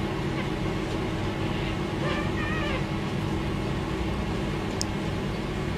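A steady machine hum made of several even low tones, holding level throughout, with a faint wavering high call about two seconds in.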